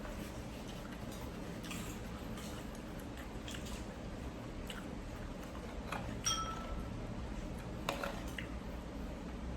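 Someone eating rice-vermicelli noodle soup: small wet chewing sounds and scattered clicks of utensils. About six seconds in, a utensil strikes the bowl in a short ringing clink.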